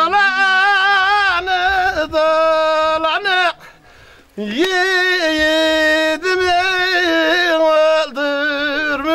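A man singing a Turkish folk tune unaccompanied, in long held notes with a wavering, ornamented voice. Just under halfway through he breaks off briefly for breath, then comes back in with a quick upward scoop.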